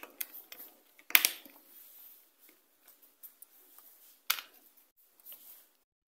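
Plastic clicks and snaps from a keypad mobile phone's housing being pressed back together around a new display, with two sharp snaps about one second and about four seconds in and softer ticks between.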